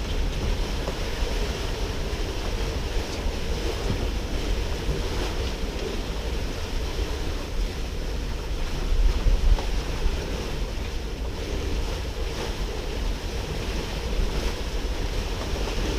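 Wind buffeting the microphone with a heavy low rumble, over water rushing past the hull of a sailboat under way, with a louder gust about nine seconds in.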